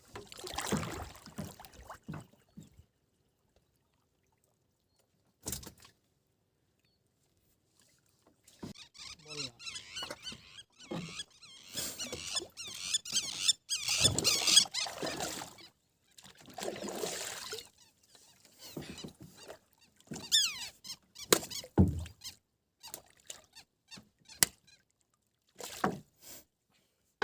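Water splashing and sloshing around a small boat in irregular bursts, with a few squeaks and knocks, and two stretches of silence.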